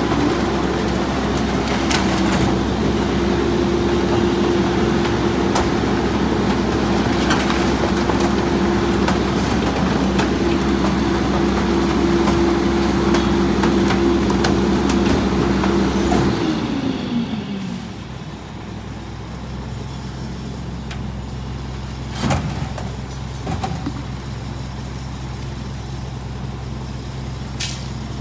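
Mack LE garbage truck's diesel engine and McNeilus rear-loader hydraulics running at raised revs with a steady whine while the packer cycles, then sliding down to a lower idle a little past halfway. A few knocks and thumps as trash is tipped into the hopper.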